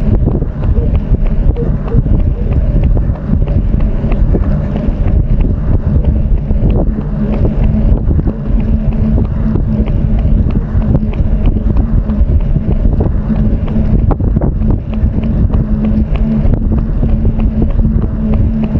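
Wind buffeting the microphone of a camera carried by a runner: a loud, steady low rumble, with a steady low hum underneath.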